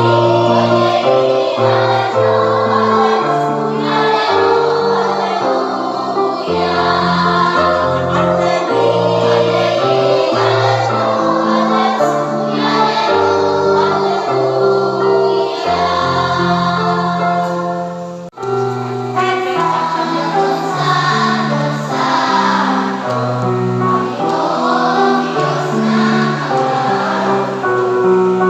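Choir rehearsing, singing sustained notes in several parts at once. The sound cuts out for an instant about eighteen seconds in, then carries on.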